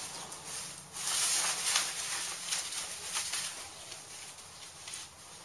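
Rustling and handling noises of canvas and fabric, loudest about a second in and fading toward the end.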